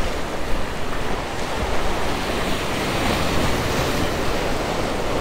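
Ocean surf breaking and washing over the rocks of a jetty, a rushing wash that swells around the middle, with wind rumbling on the microphone.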